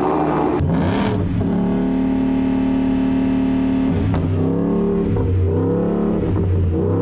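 Supercharged V8 of a Shelby Super Snake F-150 revving through its exhaust. The revs rise and hold steady for a couple of seconds, then drop about four seconds in and rise and fall in shorter blips.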